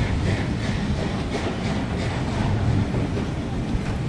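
Vintage railway passenger carriages rolling past, a steady low rumble with irregular clacks from the wheels on the track.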